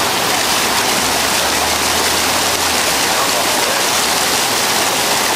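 Steady rush and patter of water-park spray fountains and jets splashing down onto the pool and deck.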